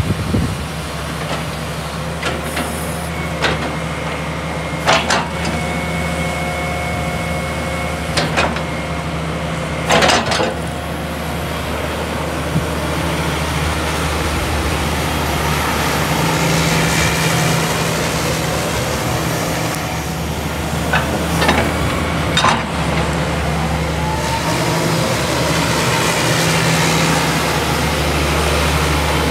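JCB JS200LC tracked excavator's diesel engine running steadily while the upper house slews round, with a few sharp clunks from the machine and a brief high whine early on.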